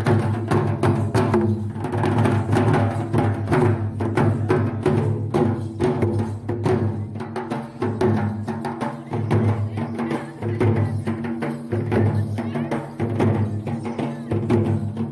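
Music driven by rapid, steady drumming, with a sustained low tone underneath.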